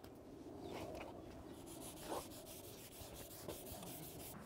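Red 3M Scotch-Brite scrub pad rubbing back and forth on a dirt bike's metal engine cases: a faint scratchy scrubbing with a few slightly louder strokes.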